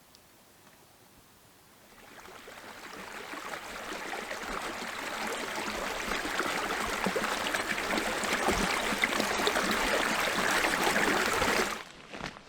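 Rushing running water, like a woodland stream, swelling gradually over several seconds and cutting off suddenly near the end.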